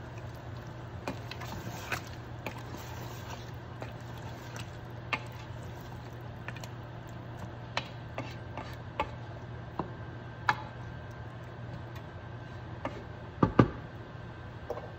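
Wooden spoon stirring turnip and mutton in a metal pressure cooker, with scattered clicks and scrapes against the pot and two louder knocks near the end, over a steady low hum.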